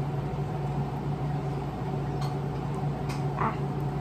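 Steady mechanical hum holding the same low tones throughout, with a few faint clicks and a brief soft vocal sound a little after three seconds in.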